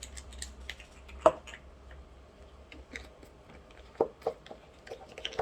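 Scattered light clicks and small knocks of objects being handled, with a sharper knock about a second in and two more close together about four seconds in.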